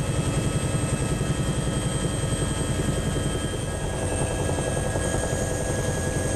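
Helicopter heard from on board: the rotor beats rapidly and evenly under a steady high turbine whine.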